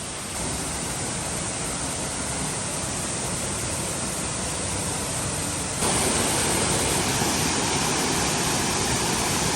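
Waterfall in full flow, a steady rush of falling water; the speaker calls it raging. It jumps abruptly louder about half a second in and again near six seconds.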